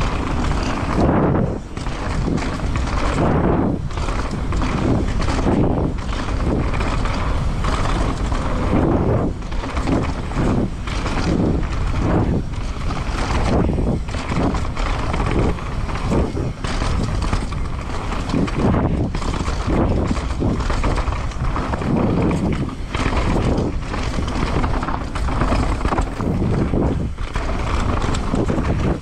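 Downhill mountain bike descending a rough trail: a steady, loud rush of tyre and trail noise, broken by many short knocks and rattles from the bike over rocks and roots.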